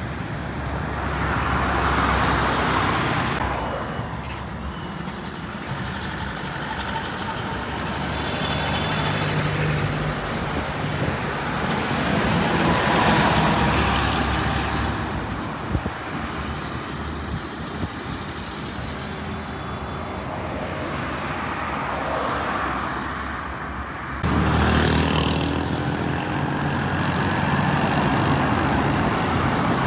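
Highway traffic going by close at hand: buses, vans and trucks pass one after another, the engine and tyre noise swelling and fading with each pass. The sound jumps abruptly about 24 seconds in.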